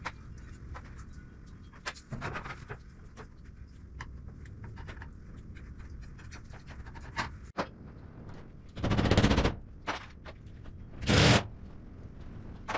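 Cordless impact driver driving screws through a metal ceiling panel: two short bursts of rapid hammering about two seconds apart in the second half, with light clicks and taps of handling before them.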